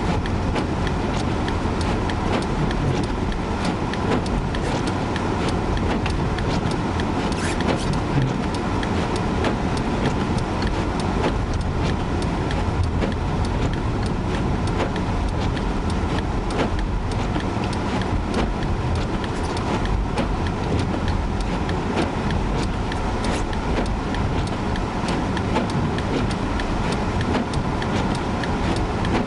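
Steady in-cabin road and engine noise of a vehicle driving on a snowy road, with scattered faint ticks throughout.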